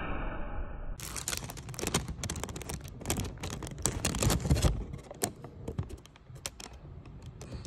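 Brown paper sandwich wrapping crinkling and rustling as it is handled. The crackle starts about a second in and thins out after about five seconds.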